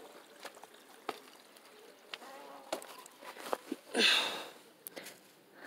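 Scattered light crackles and clicks of handling and steps on dry garden litter, then a brief loud rustle about four seconds in as the plastic greenhouse sheeting is brushed.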